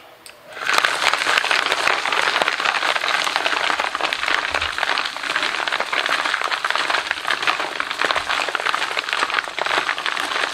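Two large homemade PVC rock tumbler barrels starting to turn on a roller tumbler about half a second in. The rocks and ceramic media inside, loaded with 500-grit aluminum oxide for the pre-polish stage, tumble in a dense, continuous clatter.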